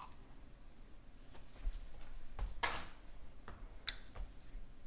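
Faint handling sounds of a spoonful of loose-leaf tea being added to a French press: a few light clicks and taps, with a short rustle a little past halfway.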